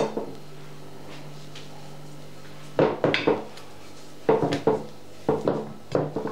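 Thin slices of raw potato being laid into a deep baking dish: a tap at the start, then short groups of soft knocks and clatters against the dish in the second half, over a low steady hum.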